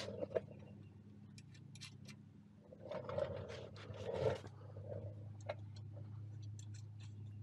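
Scattered light metal clicks and clinks of bolts, nuts and hand tools being handled while fitting a tractor stabilizer bar, over a steady low hum. A louder scraping stretch comes about three to four and a half seconds in.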